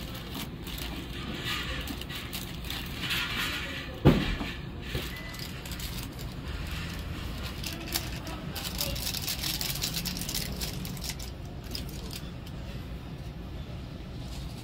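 Plastic bag and seasoning sachet rustling and crinkling as food is pushed and shaken into a paper cup by hand. A sharp knock about four seconds in is the loudest sound, over a steady low hum.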